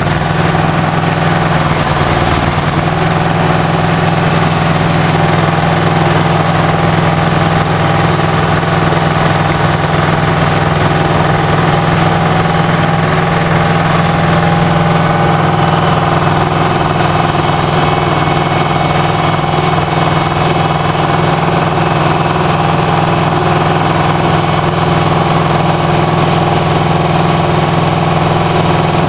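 Aquatic weed harvester's engine running steadily, a loud, even drone with a strong low hum.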